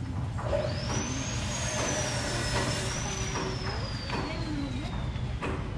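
A road vehicle passing close by: a hiss sets in about half a second in and ends near the end, with a high whistling tone that rises, wavers and then slowly falls, over a steady low hum.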